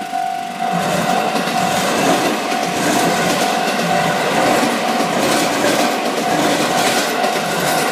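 A JR Hokkaido train passing over a level crossing, its wheels clattering over the rail joints in a steady rhythm from about a second in. The crossing's warning bell keeps ringing about twice a second throughout.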